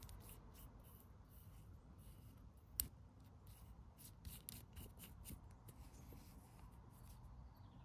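Faint clicks and rubbing from fingers handling a small metal motorcycle fuel valve and turning its knurled knob, with one sharper click about three seconds in.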